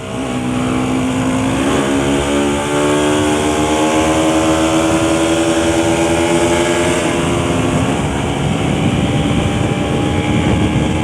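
Bajaj Pulsar NS200 single-cylinder engine running under way on the road. Its note holds fairly steady, with brief changes about two seconds in and again about seven seconds in.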